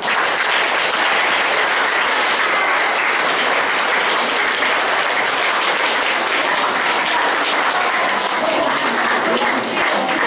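Audience of children applauding, loud and steady: dense clapping that breaks out suddenly and keeps going without a break.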